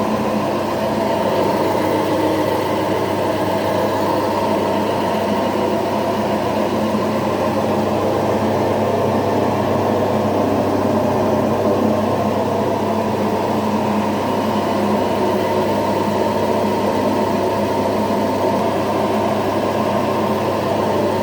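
Electric instant rice grinder for idli and dosa batter running steadily: a constant motor hum under a rough grinding noise.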